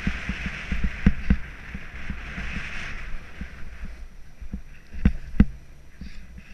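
Snowboard sliding and carving through powder and chopped-up snow: a hiss of snow under the board over the first three seconds, over a low rumble, with repeated sharp low knocks and thumps as the board rides over bumps, the loudest about a second in and about five seconds in.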